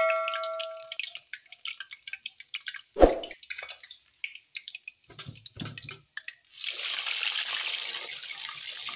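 Chicken deep-frying in hot oil in a wok: scattered crackling and popping, a single knock about three seconds in, then a loud, steady sizzle swelling up from about two-thirds of the way through. A metallic ring fades out in the first second.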